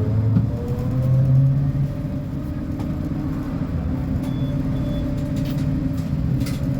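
Diesel engine of a Scania K270IB bus running under way, its pitch rising gradually in the first two seconds and then holding steady. Two short high beeps sound about four and a half and five seconds in.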